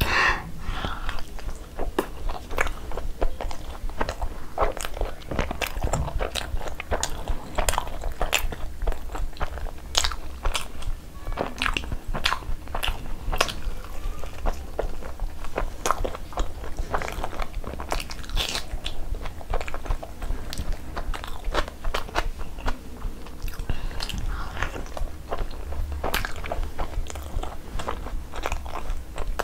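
Mouth-full chewing of butter naan soaked in butter chicken curry, with many wet clicks and smacks, heard close up.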